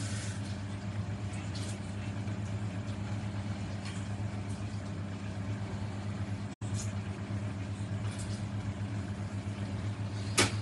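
Steady low hum of a running electric motor, with a few faint clicks and taps from cooking at the stove.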